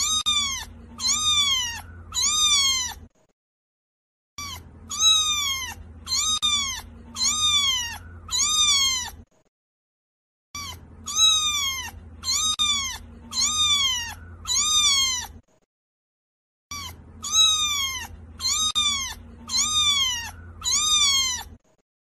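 Kitten meowing over and over, high-pitched calls that each fall in pitch, about two a second, in runs of several calls broken by short silent gaps.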